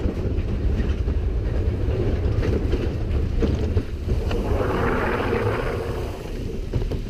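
Big Thunder Mountain Railroad mine-train roller coaster running along its track: a steady low rumble with wind buffeting the microphone, swelling louder about two-thirds of the way through.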